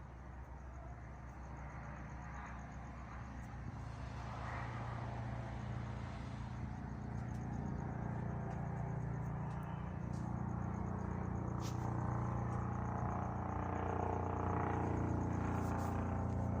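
Helicopter engine and rotor, a steady low drone that grows gradually louder as it comes closer.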